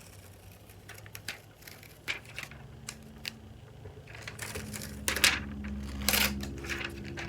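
Packaging on a new iPad being ripped open by hand: scattered small clicks and crinkles of handling, then two longer ripping sounds about four and a half and six seconds in, which are the loudest part.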